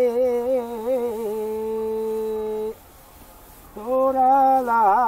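A man's voice chanting a traditional Sri Lankan paddy-threshing song (kavi) in long, drawn-out, wavering notes. One note is held for nearly three seconds, and after a short pause a second phrase begins near the end.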